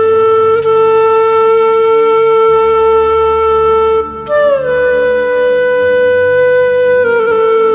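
Background music: a wind instrument plays long, slow held notes, sliding up to a higher note about four seconds in and dropping back near the end, over a low sustained drone.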